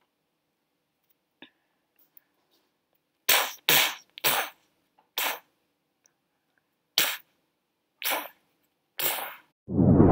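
Battle sound effects: seven short, sharp bursts of noise, unevenly spaced, then a loud explosion starting just before the end.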